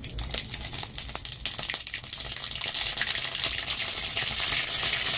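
Mustard seeds sizzling and crackling in hot oil in a kadhai for a tadka (tempering). The fine popping grows louder about two seconds in.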